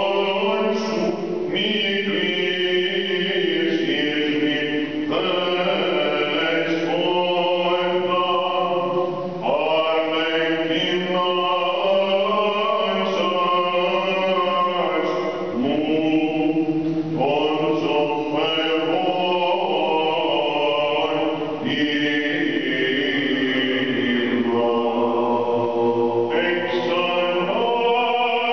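A man chanting Byzantine Orthodox hymnody in long, drawn-out phrases, the pitch turning up and down on held notes, with short breaths between phrases every few seconds.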